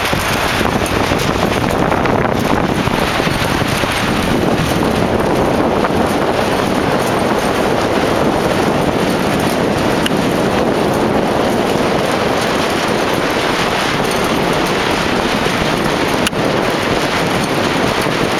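Strong wind buffeting the microphone, a loud steady rushing with no let-up, over choppy water.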